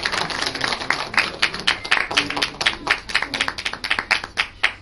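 Audience clapping: many quick, sharp hand claps, thickest in the first second and then thinning to separate claps several times a second.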